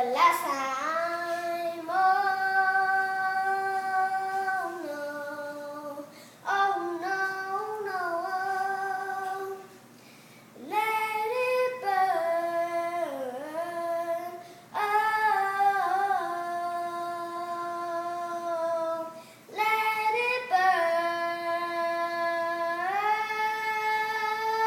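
A young boy singing a cappella in a high voice, with no accompaniment. He sings five long phrases of held, sliding notes, each separated by a short breath.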